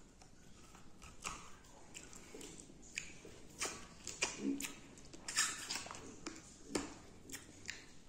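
Close-up eating mouth sounds: irregular wet clicks and smacks of chewing, coming more often and louder in the second half.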